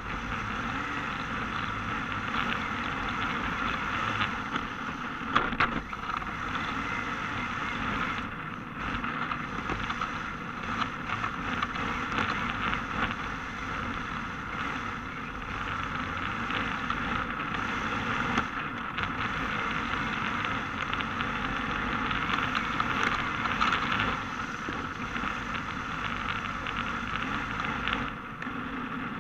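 Yokomo DRB electric RC drift car running laps, heard through an action camera mounted on the car: a steady rushing noise of wind and tyres on asphalt with a constant mid-pitched hum and a few small knocks.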